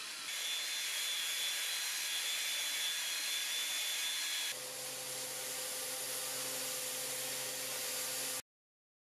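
A belt sander runs on the oak tabletop, a steady whir with a high whine. About four and a half seconds in, it gives way to a Festool ETS EC 150/5 random orbital sander running with a lower, steady hum. The sound cuts off suddenly near the end.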